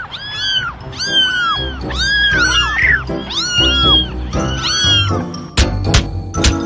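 A cat meowing over and over, about one meow a second, each rising then falling in pitch, over background music. Near the end come three sharp knocks.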